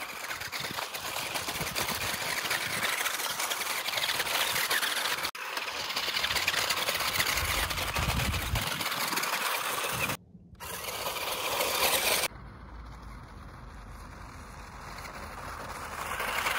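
A toy Rock Rover 4WD RC rock crawler driving over rocks and gravel: its small electric motors and gears whirring, with the tyres scrabbling on stones. The sound breaks off and changes abruptly three times and is quieter near the end.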